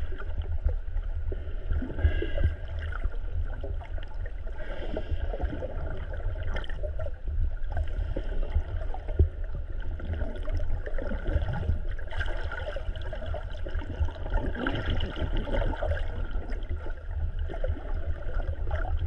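Underwater sound picked up by a camera in open ocean: a steady low rumble of moving water, with scattered faint clicks and gurgling.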